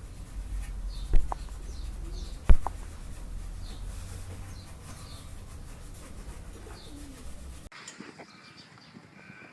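Two sharp knocks about a second apart over a low rumble, with faint short bird chirps throughout; the rumble cuts off suddenly near the end.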